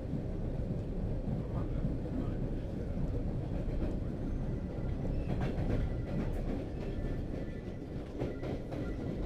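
Metro train running, heard from inside the car: a steady low rumble of wheels on track, with a few rattles and clicks about halfway through.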